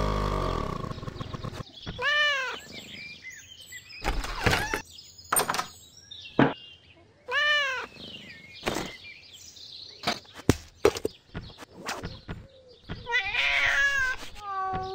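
Cartoon sound effects from a LEGO augmented-reality catalogue app: two short calls that rise and fall in pitch, about five seconds apart, between scattered clicks and knocks, then a flurry of chirping near the end.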